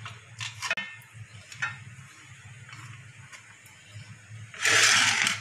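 Light scattered clicks and taps of kitchen handling around an aluminium karai over a low steady hum, then a short loud rushing noise near the end.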